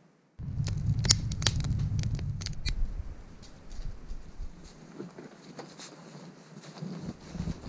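A sudden low rumble with sharp crackles starts about half a second in and lasts about two and a half seconds. Then quieter irregular crunching follows, with footsteps crunching through deep snow near the end.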